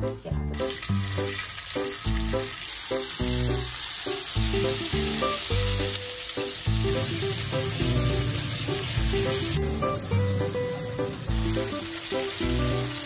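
Tofu slices sizzling as they pan-fry in hot oil, starting about half a second in, over background music.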